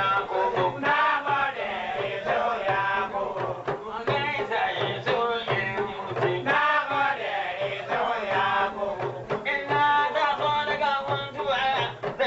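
Hausa praise song: a male voice singing over talking drums (kalangu) that beat a steady rhythm of about two strokes a second.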